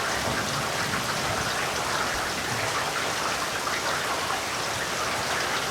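Heavy rain falling steadily, a dense even hiss of raindrops.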